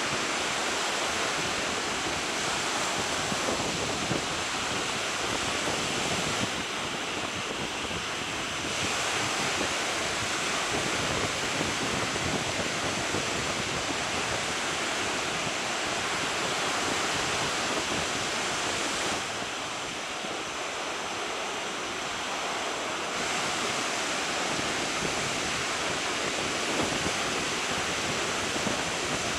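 Surf washing on a sandy beach, with wind blowing on the microphone: a steady rushing noise that softens a little twice.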